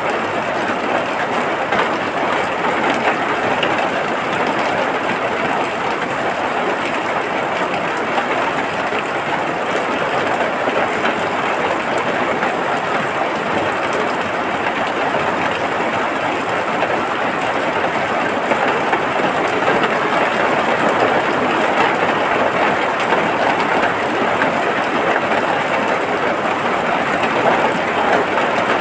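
Steady rain falling, a dense, even hiss with no breaks.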